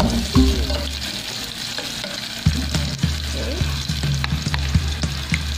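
Sliced onions sizzling as they cook in a small aluminium pot on a gas burner, a steady hiss. Occasional clicks come from a metal spoon knocking against the pot as they are stirred.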